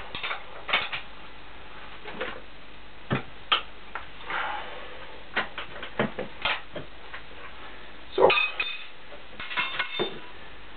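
Irregular clinks and knocks of steel parts and tools being handled on a milling machine, with a few brief scrapes. The loudest cluster of clinks comes about eight seconds in, and a few short ringing metallic clinks follow near the end.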